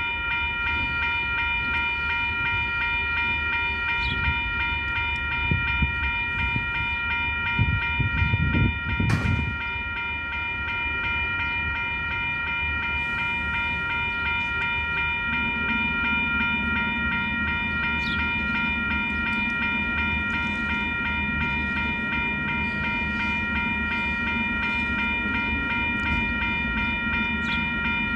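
Level crossing warning bells ringing continuously while the crossing lights flash for an approaching train. There is a single loud clank about nine seconds in. A low diesel engine hum from the shunting locomotive sets in about halfway through and stays steady.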